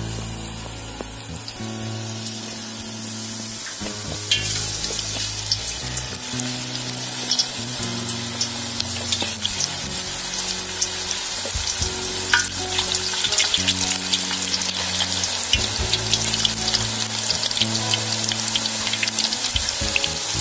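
Tapioca chip slices deep-frying in hot oil in an iron kadai: a steady sizzle full of crackling pops, growing louder about four seconds in as more slices go into the oil. Background music with low held notes plays along.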